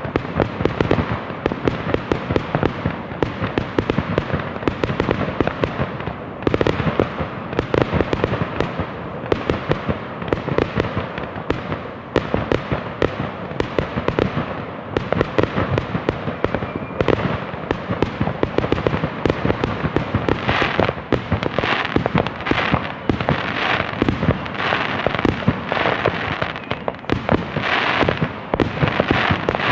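Fireworks going off in a dense, continuous barrage of bangs and crackles, with bigger bursts coming thicker in the last third.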